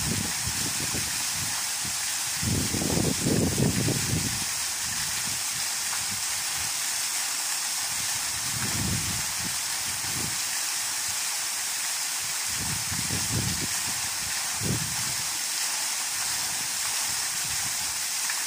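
Waterfall rushing: a steady, even wash of falling water, with low rumbling swells coming and going a few times.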